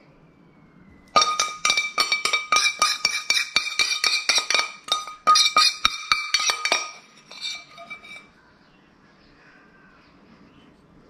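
Metal spoon scraping and tapping quickly inside a stainless steel skillet, about four clinks a second with the pan ringing, as the last of the sauce is scraped out. It stops about seven seconds in, with a few fainter scrapes after.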